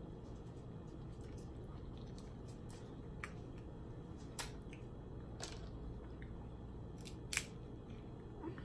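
Snow crab leg shell being picked apart by hand: a few sharp, scattered clicks and cracks of shell, the loudest about seven seconds in, over a steady low background.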